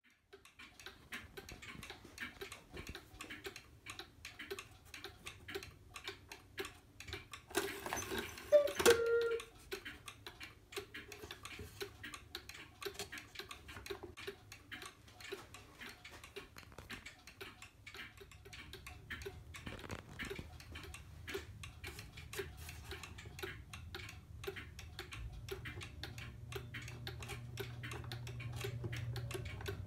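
Clock ticking: a fast, steady run of small mechanical clicks, with a louder clatter about eight or nine seconds in. A low hum grows toward the end.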